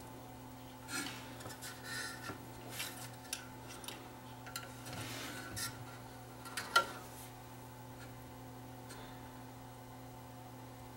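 Soft rustling and small sharp clicks as a new capacitor and its wire leads are handled in the metal chassis of a 1948 Marconi 238 radio during a recap, over a faint steady hum. The handling stops after a last sharp click about seven seconds in.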